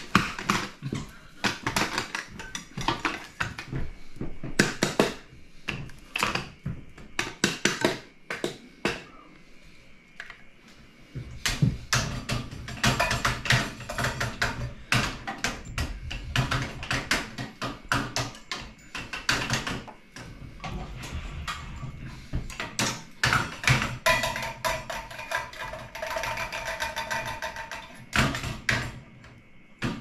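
Cockatoo worked up by a tape dispenser: a long run of sharp knocks, taps and scrapes, which eases off a little about a third of the way in and grows busier again after that.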